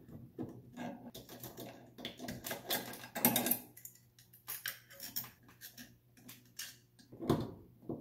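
Scattered small clicks, taps and rattles of hands working wires, a screwdriver and a plastic lampholder at a metal ceiling junction box, with a brief louder sound near the end.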